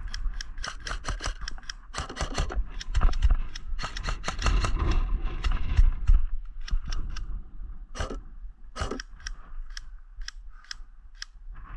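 Airsoft guns firing: many sharp clicking shots in quick succession through the first half, then single shots spaced out toward the end.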